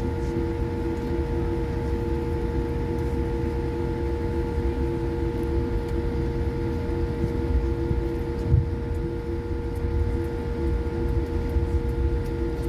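Steady whine of jet engines with a continuous low rumble, heard from inside an airliner cabin while taxiing, with one louder thump about eight seconds in.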